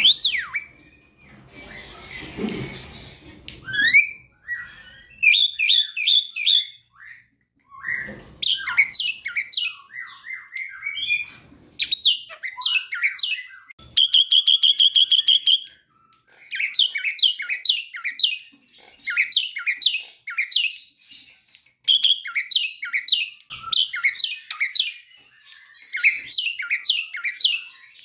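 Caged Javan myna in full song: runs of quick, descending whistled chirps, with a short harsh, noisy call about two seconds in and a fast buzzing trill held for about two seconds around the middle.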